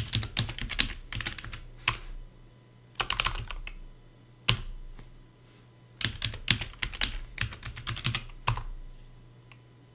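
Typing on a computer keyboard in three quick bursts of keystrokes, with a single key struck on its own about two seconds in and again about four and a half seconds in.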